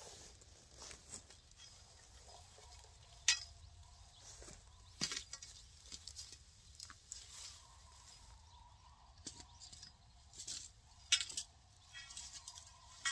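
Green plastic wildlife netting rustling as it is handled and pulled over thin metal fence poles, with several sharp clicks and knocks scattered through.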